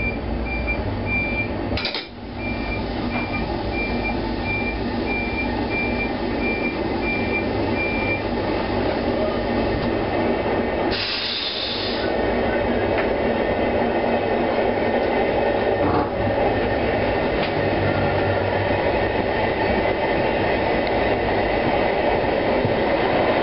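Passenger train pulling away from an underground station platform. A high beep repeats for about the first eight seconds, then the rumble of the wheels on the rails builds steadily as the train gathers speed, with a short hiss about eleven seconds in.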